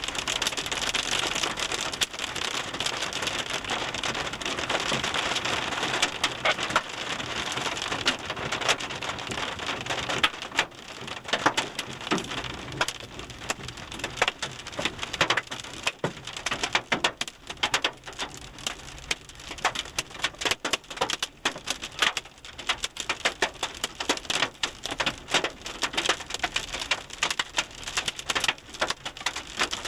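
Hail and rain pelting a car's roof and windshield, heard from inside the cabin. For about the first ten seconds it is a dense, steady drumming; then it thins into sharp, separate clicks of single hailstones striking.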